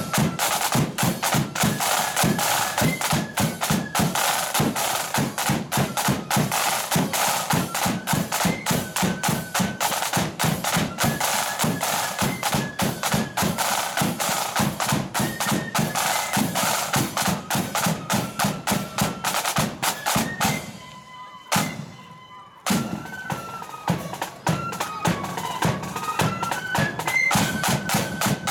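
Marching flute band playing: flutes carry a stepping tune over rapid, continuous side-drum beating. About three-quarters of the way through the music breaks off for a second or two, then the drums and flutes start up again.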